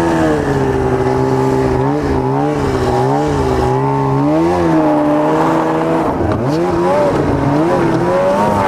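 Arctic Cat ZR 800 snowmobile's two-stroke twin engine running loud under throttle. Its pitch rises and falls again and again as the revs change, and it drops sharply about six seconds in before climbing back.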